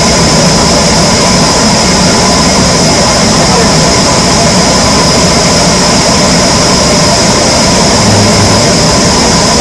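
Power saw running steadily for teak wood cutting, loud, with a constant high whine over the noise.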